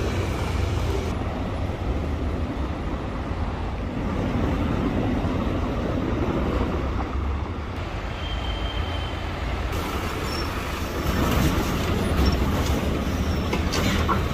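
City street traffic: a steady low rumble of passing vehicles, a little busier in the second half, with a few faint high squeaks.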